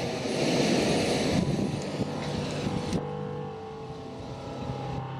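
Freight train hauled by an electric locomotive rolling past: a steady rumble of wheels on rail with a low, even hum. About three seconds in, the hiss at the top drops away abruptly and it turns quieter.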